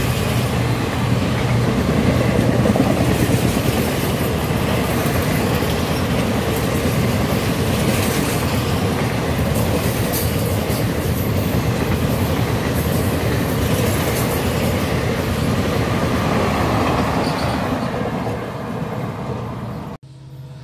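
Passenger coaches of an Indian Railways express train rushing past at speed, with a steady rumble and clatter of wheels on the rails. The sound eases off near the end and then cuts off abruptly.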